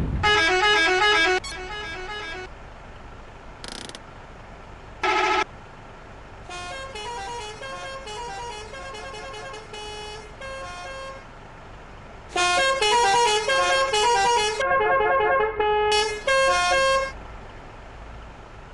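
Basuri telolet bus horns, multi-note musical horns, playing quick stepping tunes in bursts. A loud tune opens, two short blasts follow, then a softer run of notes, then a long loud tune near the end.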